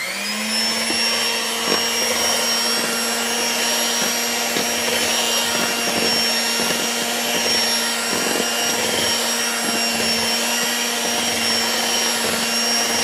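Electric hand mixer running steadily at one speed, its beaters working almond flour into an egg-yolk and butter batter, with a few light knocks of the beaters against the bowl.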